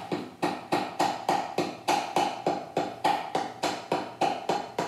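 Wooden paddle tapping the rim of a stiffened clay pot in a steady rhythm of about three strikes a second, each with a short ring, beating the rim down to a sloped bevel.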